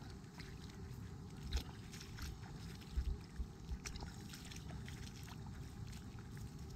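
A dog splashing as it runs and wades through shallow water, with irregular splashes and sloshing steps.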